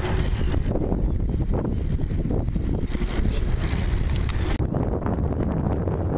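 Wind buffeting a moving camera's microphone: a steady low rumble with hiss over it, the high hiss cutting away suddenly about four and a half seconds in.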